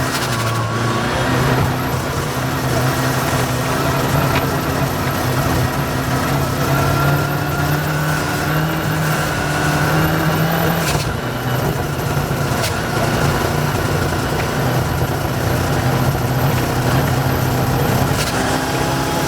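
Rally car engine heard from inside the car, running at a fairly steady pitch with small rises and falls, on a car that has been misfiring since a water crossing. A few sharp knocks come through, one in the middle and another near the end.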